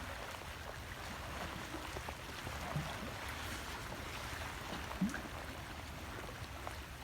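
Steady wash of water in a pool stirred by a swimming elephant, with a couple of brief faint splashes about three and five seconds in.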